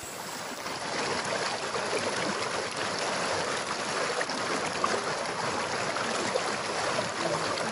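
Shallow river water rushing and splashing steadily over rocks, heard close up.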